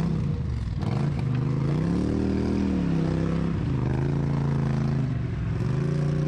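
ATV engine running under throttle while riding. The revs rise and fall twice: up about two seconds in, down about a second later, and up again near the end.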